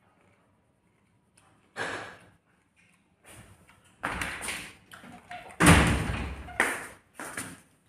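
A series of thuds and knocks: one sharp knock about two seconds in, then a busier run of knocks from about three seconds on, the loudest thud a little past the middle.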